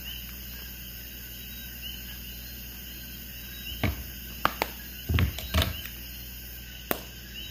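Makeup items being handled: a few light clicks and knocks, bunched about four to seven seconds in, over a steady low hum.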